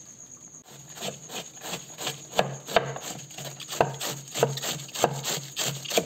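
Knife chopping cabbage: a steady run of quick chopping strokes that starts a little under a second in.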